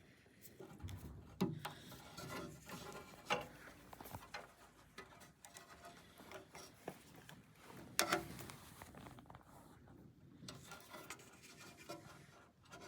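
Small parts and tools being handled and rummaged through: rubbing and scraping with a few sharp clicks, the loudest about 8 seconds in.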